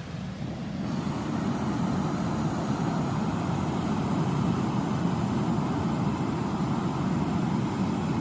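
Waterfall, a steady rushing of falling water that grows louder about a second in and then holds even.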